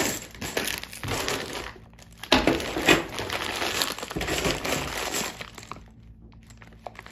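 A clear plastic bag of loose SS109 5.56 mm brass cartridges being picked up and handled: the plastic crinkles while the rounds clink and rattle against each other. It comes in two long stretches, then dies down to a few small clicks near the end.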